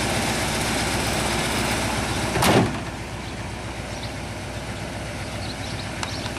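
Holden VN Commodore Clubsport's 5.0-litre V8 idling steadily, with one loud thump about two and a half seconds in, after which the engine sound is lower.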